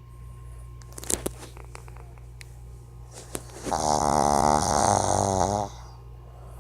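A dog snoring in its sleep: one long snore of about two seconds near the middle, with a wavering pitch.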